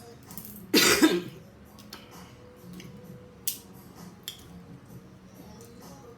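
A loud belch about a second in, lasting about half a second. A few quiet short clicks follow.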